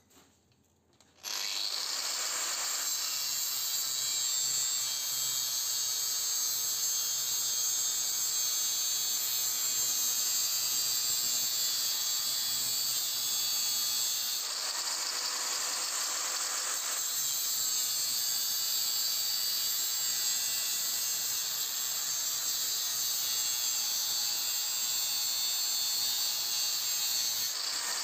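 Electric angle grinder switching on about a second in and running steadily at a high pitch. Its disc cuts into the copper windings of a toroidal transformer several times, the sound getting fuller and harsher while it bites.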